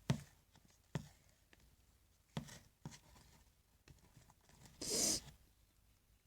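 Homemade slime being squeezed and stretched by hand: a few short sticky clicks and squelches, with one longer, louder noisy squish about five seconds in.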